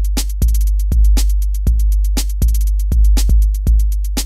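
Electronic intro music with a steady drum-machine beat over heavy bass.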